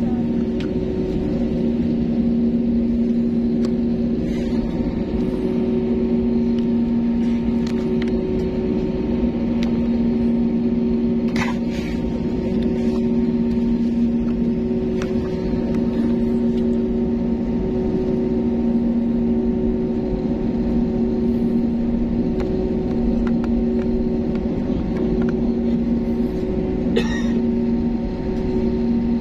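Steady droning hum inside a parked airliner's cabin, the running noise of the aircraft's air-conditioning and power systems while it waits at the gate, with two brief clicks, one near the middle and one near the end.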